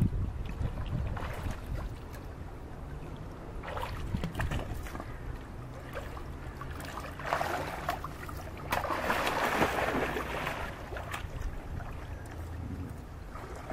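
Water splashing as a child swims in a small pool, coming in several bursts with the longest and loudest about two-thirds of the way through. Wind rumbles on the microphone throughout.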